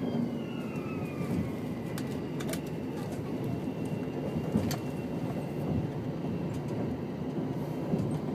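Running noise of a Tango Explorer diesel express railcar under way: a steady low rumble, with a few sharp clicks from the wheels and a faint steady high whine in the second half.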